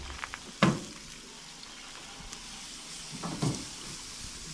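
Meat sizzling as it cooks, a steady hiss. A sharp knock comes just over half a second in, and a brief low sound about three seconds in.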